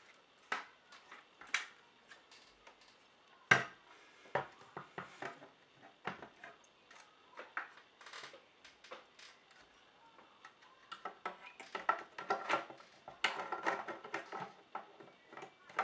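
Plastic casing parts of a Synology DS115j NAS being handled and fitted together, a scattered series of clicks, taps and knocks. The loudest knock comes about three and a half seconds in, and a run of quick rattling clicks follows near the end.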